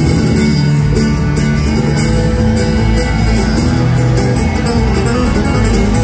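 A bluegrass string band playing live through an arena PA, heard from the crowd: acoustic guitar, mandolin, upright bass and fiddle over a steady driving rhythm.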